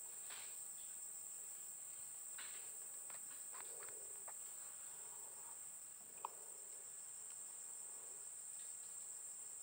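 Steady high-pitched chorus of insects, with a few faint clicks and one short sharp tick about six seconds in.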